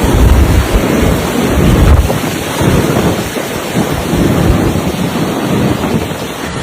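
Strong wind buffeting the microphone: a loud, steady rushing with uneven low gusts.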